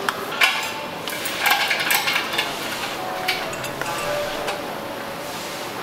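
Clinks and knocks of metal utensils and cups being handled while a drink is made, with a busier rattle about a second and a half in.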